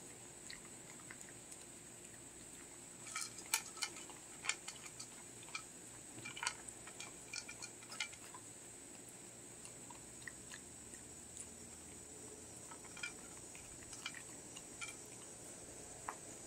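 Shetland sheepdog puppy eating dry kibble from a bowl: scattered crunches and sharp clicks of kibble and teeth against the bowl, busiest in the first half and sparser later.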